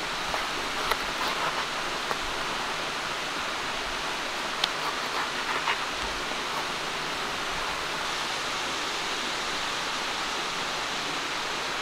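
Steady rush of running water. A few faint clicks and crunches come in the first six seconds as a knife cuts through a pomelo's thick rind.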